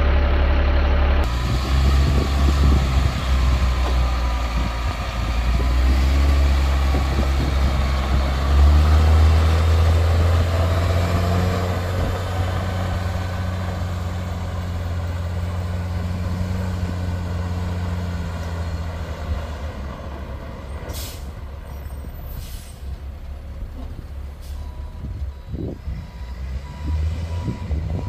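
Caterpillar C7 six-cylinder diesel engine of a Sterling L7500 truck running, swelling louder about nine seconds in, then easing off and quieter over the last third. A few short air hisses come near the end.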